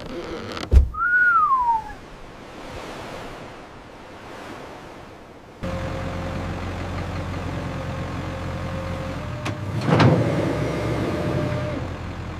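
A heavy thump, then a short whistle-like tone falling in pitch. About halfway through, a steady mechanical drone starts abruptly, with a sharp crack near the end.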